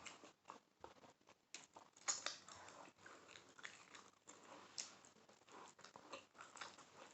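A person chewing a mouthful of juicy birria taco: faint, irregular smacking and chewing sounds.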